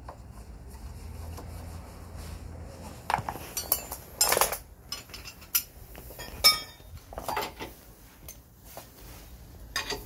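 Metal hand tools clinking and knocking against metal while a scooter's front disc brake caliper is worked on, in a run of sharp, uneven clinks that starts about three seconds in. The loudest clinks come at about four and six and a half seconds.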